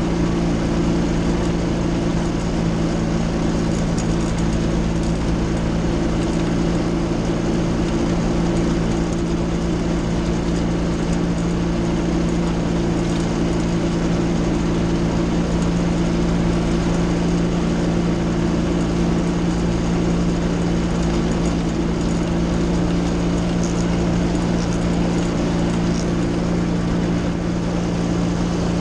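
Aerolite 103 ultralight's engine and propeller running at a steady, unchanging taxi power, heard close from the open cockpit.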